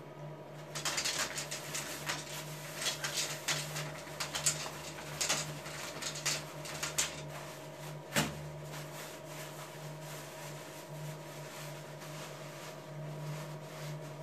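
Steady low room hum with a run of small clicks and rustles, ending in one sharp click about eight seconds in.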